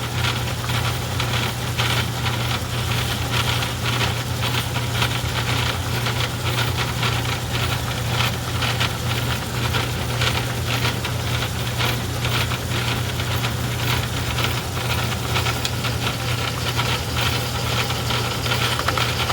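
Craftsman 109 metal lathe running steadily, with a constant hum and a dense, even rattle, while it takes a light cleanup cut on a metal centering cone.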